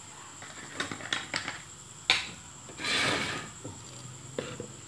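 Bowls and a clay mortar handled on a kitchen counter: scattered light clicks and taps, one sharp knock about two seconds in, then a rustling scrape lasting about a second.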